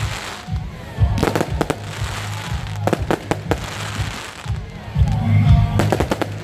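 Fireworks shells bursting overhead in three quick volleys of rapid pops, over a steady low hum.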